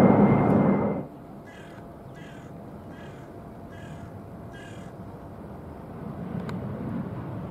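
Boeing 767 jet engines at climb power, loud and steady, cut off suddenly about a second in. Over the quieter background that follows, a bird calls five times in short calls a little under a second apart. Near the end a Boeing 787's jet engines at take-off power swell in.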